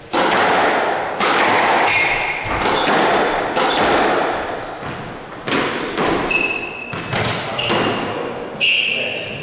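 Squash rally: the ball struck by rackets and hitting the court walls, sharp cracks about once a second that ring in the hall, with short squeaks of shoes on the wooden floor.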